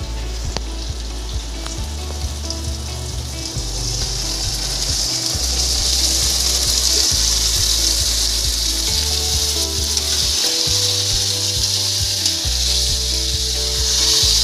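Raw marinated chicken pieces sizzling as they are tipped into hot oil in a steel kadai. The sizzle swells about four seconds in and stays strong.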